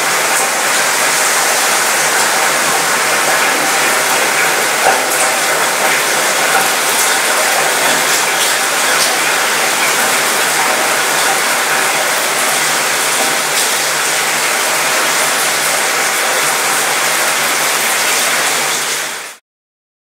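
Light rain falling on a cruise ship's mostly metal balcony: a steady hiss with many small rattling ticks of drops on the metal, over a low steady hum. It stops abruptly near the end.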